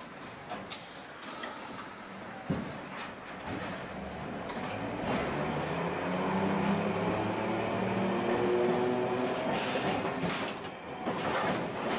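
Tosaden streetcar heard from inside the car while it runs along the track. Scattered clicks and knocks come from the running gear, and a gently rising motor whine swells up around the middle as the tram picks up speed, then fades near the end.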